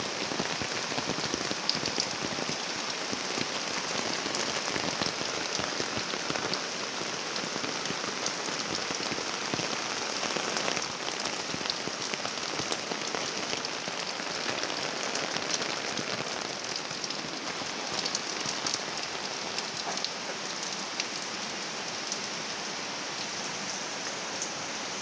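Steady rain falling on a garden, an even hiss with many small drop ticks scattered through it, easing slightly near the end.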